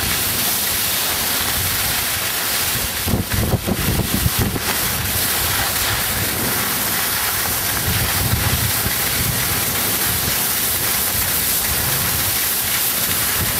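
Steady wind rushing over the microphone of a skier moving downhill, mixed with the hiss of skis sliding over snow, with a few stronger gusts about three to five seconds in.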